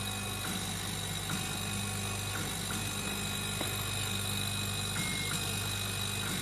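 CNC laser cutting machine running as its head traces letters into a clear sheet. A steady hum and a thin high tone run underneath, with short whining tones from the drive motors starting and stopping every second or so as the head changes direction.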